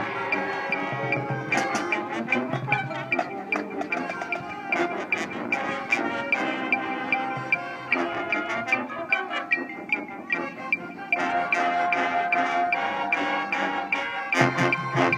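Marching band playing its opener show music in rehearsal: sustained brass chords with mallet percussion from the front ensemble, and a steady sharp tick keeping the beat.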